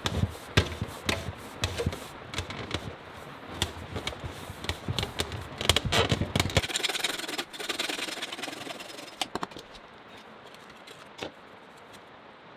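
A black plastic drain pipe knocked and scraped as it is worked by hand down through a hole in the wooden floor: a busy run of knocks and rubs. About two-thirds of the way in the sound changes abruptly to a brief scraping, then drops to a few faint ticks.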